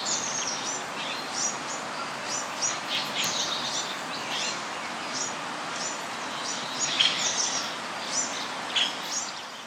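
Small birds chirping, short high chirps two or three a second, several voices overlapping, over a steady background hiss.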